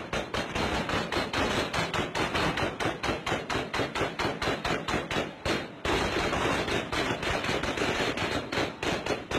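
Heavy, sustained automatic gunfire, about five or six shots a second in long unbroken strings, recorded on a phone's microphone.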